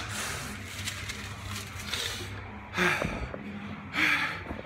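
A man breathing hard through his mouth and nose in several short, noisy gasps and sniffs into a paper towel, the strongest near the end. He is reeling from the burn of a habanero chicken sandwich.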